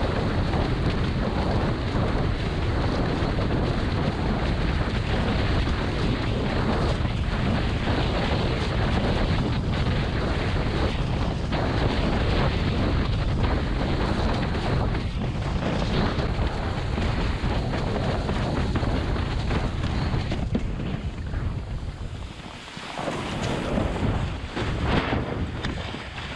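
Wind buffeting the microphone, with the rush of a slalom windsurf board planing fast over choppy water. The noise dips briefly near the end, as the board turns onto the other tack, then builds again.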